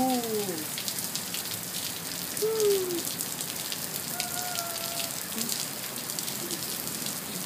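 Heavy rain falling steadily, with a dense patter of close drop hits. A few short voice sounds glide up and down over it, near the start, about two and a half seconds in, and again about four seconds in.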